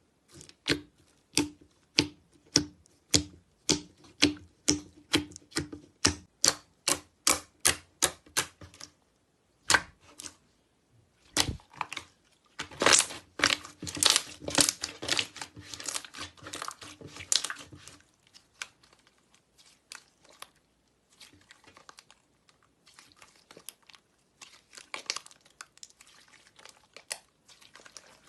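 Slime being pressed and squished by hand, making crisp, regular clicks about two a second, then a dense crunching crackle about halfway through, and fainter scattered crackles near the end.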